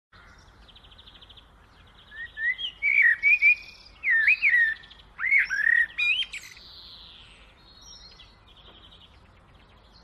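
Budgerigars chirping: a quick run of short, loud whistled calls that rise and fall, from about two seconds to six and a half seconds in, with softer buzzy chatter before and after.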